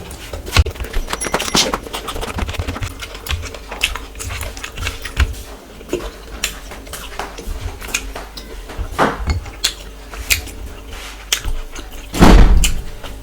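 Close-miked eating: wet chewing and mouth smacks with scattered small clicks, and a louder, deep thump-like burst near the end.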